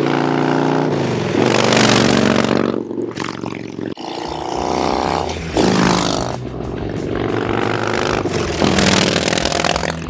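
Harley-Davidson Dyna Low Rider S V-twin riding past and accelerating, its engine pitch climbing several times as it pulls through the gears. The first few seconds are on Vance & Hines Short Shots Staggered exhaust; after an abrupt cut about four seconds in, the same bike passes on its restricted stock exhaust.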